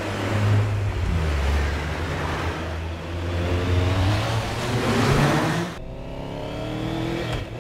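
BMW R nineT motorcycle's boxer-twin engine running hard and accelerating, its pitch climbing repeatedly as it revs up through the gears. About six seconds in the sound cuts abruptly to another rising rev.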